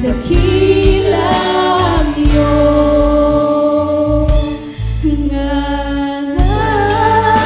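Worship band performing a slow praise song: several voices singing long held notes together over electric guitars, bass, keyboard and an electronic drum kit keeping a steady beat.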